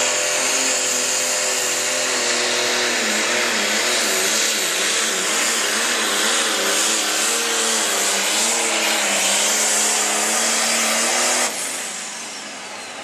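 John Deere light pro stock pulling tractor's turbocharged diesel engine running flat out under load on a pull, its pitch wavering up and down as the tractor bounces. Near the end the engine sound drops away sharply, leaving a high whine falling in pitch.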